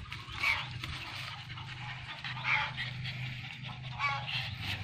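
A few short animal calls, about half a second, two and a half and four seconds in, the last a pitched call, over a low steady hum.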